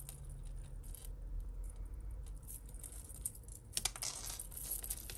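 Metal chains and beads of costume jewellery clinking and jangling against each other as a tangled piece is worked loose by hand from a pile. There are scattered small clicks, with a denser burst of jangling about four seconds in.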